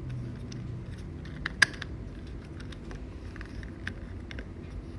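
Light plastic taps and clicks from a battery pack's plastic top cover being lined up and pressed onto its case, with one sharper click about a second and a half in.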